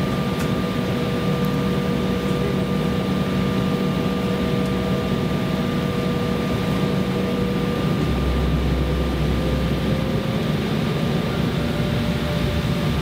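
Cabin noise of an Embraer ERJ-170 taxiing, heard from a rear seat: the steady whine and hum of its GE CF34-8E turbofan engines, with one engine tone rising slightly near the end. A low rumble joins in for about two seconds just past the middle.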